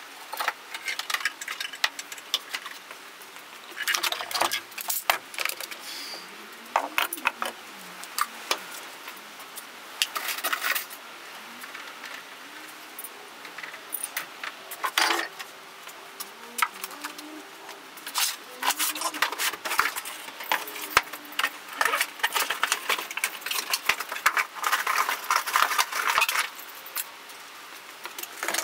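Metal hand tools and pegboard hooks clinking and clattering in irregular bursts as tools are handled and hung on a pegboard over a wooden workbench.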